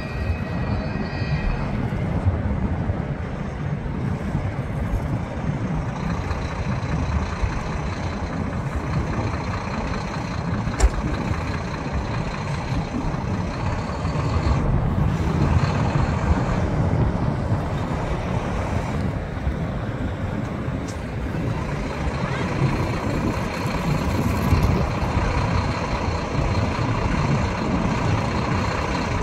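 Heavy army cargo truck's diesel engine running steadily as the truck rolls slowly in, with a deep low rumble. One sharp click stands out about 11 seconds in.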